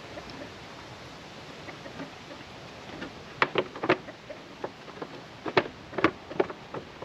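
A run of short, sharp clicks or knocks at irregular spacing, starting about halfway through, over a faint steady background.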